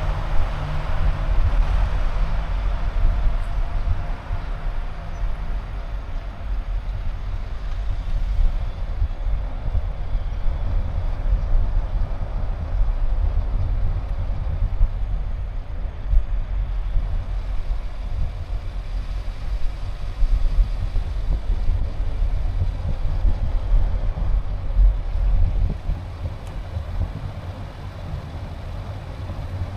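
Car driving: a steady low rumble of road and wind noise that swells and dips.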